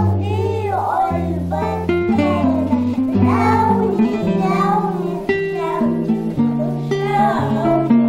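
A group of young girls singing a children's song together over instrumental accompaniment with steady bass notes.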